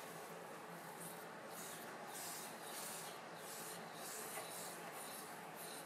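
Red-hot steel knife blade being quenched in Parks 50 quench oil: a faint, steady sizzle that swells in soft hissing surges about twice a second.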